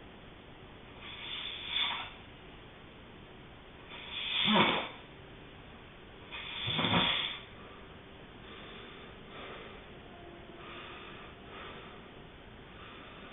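A sleeping person snoring, a breath every two to three seconds. Two louder, rasping snores come about four and a half and seven seconds in, then softer breathing.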